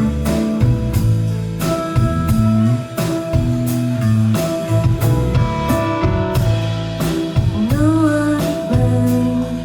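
Live band playing a song: a steady drum beat with bass and guitar, and a voice singing a gliding line.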